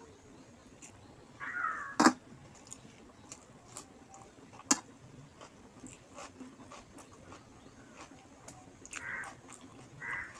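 Eating noises from a meal of rice and fish curry: soft chewing and mouth sounds, two sharp clicks, and three short squeaky sounds.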